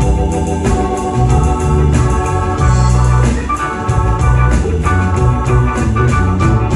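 Live band playing an instrumental passage: a stage keyboard with an organ sound plays held chords over electric bass guitar and a steady drum beat.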